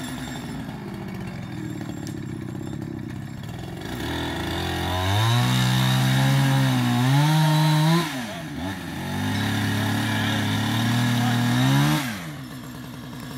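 Chainsaw idling, then revved up about four seconds in and held at high throttle for two stretches of about three seconds each, with a brief dip in pitch between them, before falling back to idle near the end; it is cutting into the trunk of a tree being felled.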